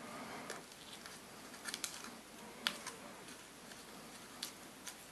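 Scissors giving a handful of faint, separate snips and clicks as they trim small bits off a buzzbait blade blank.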